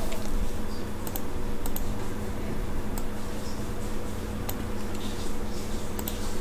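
A few sharp computer mouse and keyboard clicks, several in quick pairs, over a steady low electrical hum.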